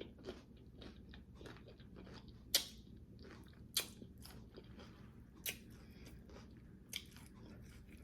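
Close-miked chewing of crunchy low-carb taco shells: soft crackly chewing throughout, broken by four sharper crunches spaced a second or two apart.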